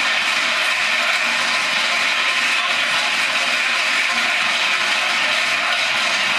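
Steady, unbroken crowd din in an indoor basketball hall, an even wash of many voices and hall noise with no single sound standing out.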